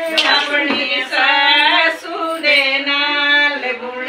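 Women's voices singing a melody of long held notes that bend in pitch, a traditional wedding song.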